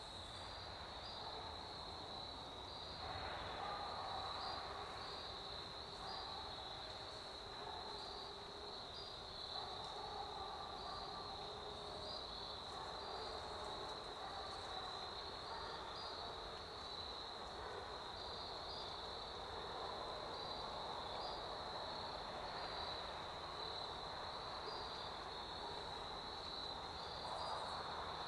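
Steady high-pitched insect chorus in the woods, with a faint regular pulse.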